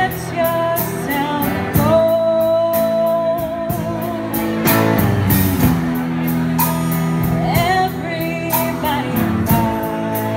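Music: a singer with guitar accompaniment over a steady beat, holding one long note about two seconds in.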